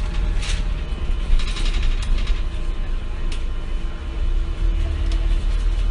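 Riding inside a moving double-decker bus: a steady low engine rumble and hum, with rattles and clicks from the bus body and fittings here and there.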